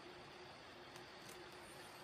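Near silence: a steady hiss with a faint hum, and two faint short scrapes about a second in from a carbon-steel carving knife shaving dry pear wood.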